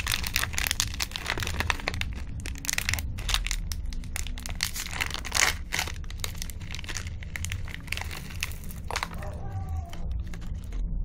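Plastic candy wrapper of a Gems chocolate packet crinkling and crackling as it is torn open by hand. The dense crackle thins out after about eight seconds.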